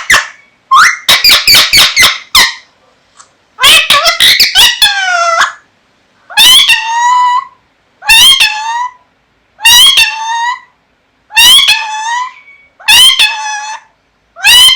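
Pet parrot calling loudly: a quick run of short chattering notes in the first few seconds, then a string of drawn-out calls, each falling in pitch, about every second and a half.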